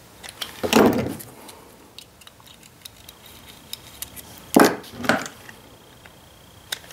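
Small metal tools and parts clinking and rattling while the breaker points gap is set on a Ford 2N front-mount distributor. Light ticks throughout, with two louder clatters, about a second in and again around the middle.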